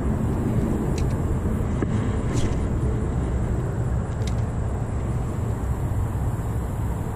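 Steady low rumble on the microphone, with a few faint clicks from a light spinning rod and reel being handled and cast.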